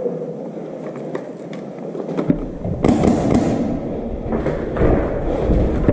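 Footsteps, gear rustle and knocks picked up by a helmet-mounted action camera as the wearer moves. The sound becomes fuller about two seconds in, and a sudden louder rustle comes just before three seconds, followed by scattered thuds.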